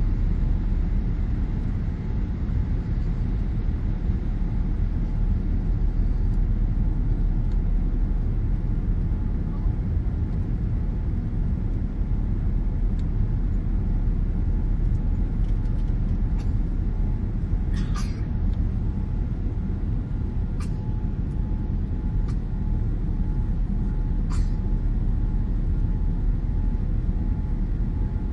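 Boeing 787-9 engine and airflow noise heard inside the passenger cabin: a steady low rumble with a faint steady whine over it. A few small clicks come about two thirds of the way through.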